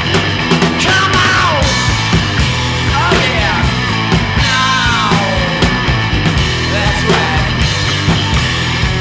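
A rock band's recording playing at a steady loud level, with several sliding notes rising and falling in pitch.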